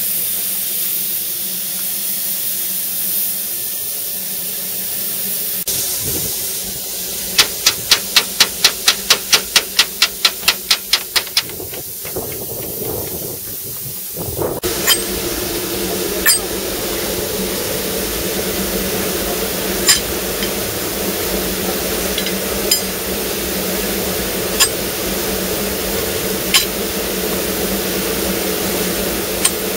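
Steam hissing steadily from a steam locomotive standing still. Near the middle comes a quick run of about a dozen and a half sharp metallic clicks, roughly four a second. Later, single sharp knocks come every second or two over the hiss.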